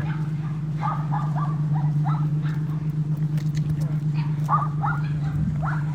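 A dog barking in short, high yaps that come in small bunches, over a steady low hum.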